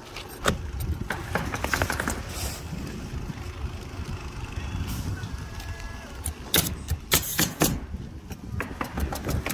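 Sharp knocks and clicks of shingle roofing work over a steady low rumble, with a quick run of five or six knocks about six and a half seconds in.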